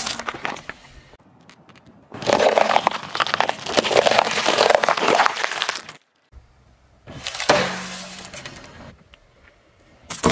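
A car tyre rolling slowly over things on asphalt and crushing them, in separate short takes: a loud burst as a container is squashed and squirts liquid at the start, then several seconds of dense crackling and crunching, then after a brief cut another shorter stretch of cracking and squishing.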